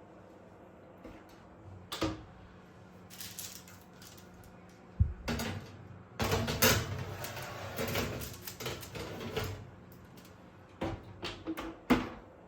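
Knocks, clicks and clatter of objects being handled and set down, with a busier run of clatter about six to ten seconds in and a sharp knock near the end.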